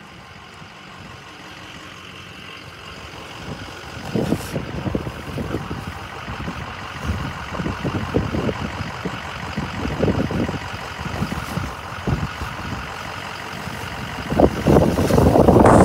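Wind gusting on the microphone in irregular buffets over a steady faint hum, turning into a loud rush of wind noise near the end.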